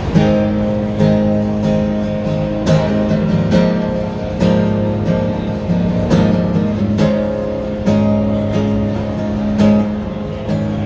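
Acoustic guitar strumming chords at a steady pace, with no voice over it.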